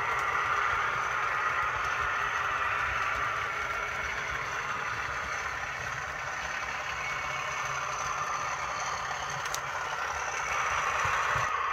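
Model train running on the layout's track, a steady running noise with rattle from the wheels and rails. It grows louder near the end as the train draws closer.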